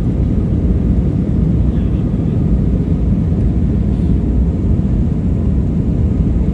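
Airbus A321-231 airliner taking off, its IAE V2500 turbofan engines at takeoff power giving a steady, loud low rumble.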